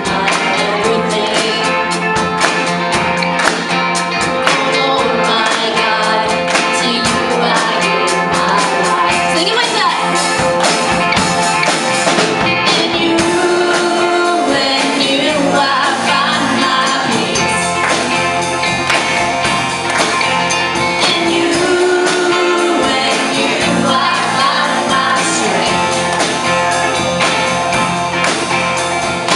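Live church worship band performing a contemporary worship song: singing over a full band with a steady beat.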